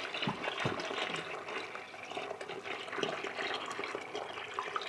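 Rinse water pouring steadily into the drum of a Rovin Ecospin manual washing machine as it is filled for the rinse cycle.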